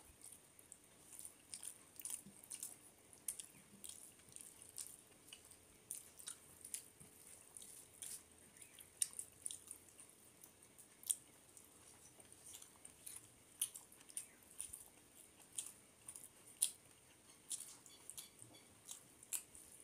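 Eating rice and fish curry by hand: fingers mixing and mashing the rice on a metal plate, along with chewing. A steady stream of small, irregular wet clicks and squishes, several a second.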